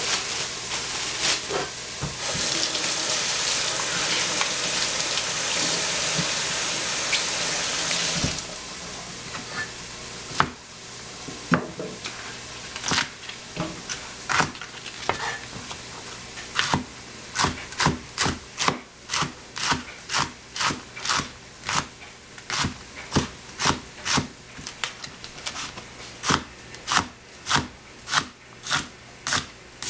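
Onion and capsicum sizzling loudly in a hot frying pan. The hiss cuts off about eight seconds in and is followed by a knife chopping on a cutting board: a few scattered strokes, then a steady rhythm of about two strokes a second.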